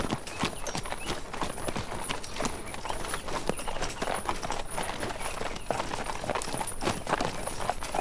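Horse hooves clopping: a dense, irregular run of hoof strikes.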